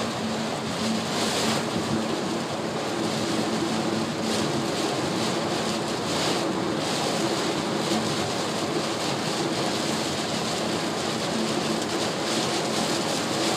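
Steady rush of road and rain noise inside a Honda car's cabin while driving in rain, with a low engine hum and the windshield wipers sweeping across the glass now and then.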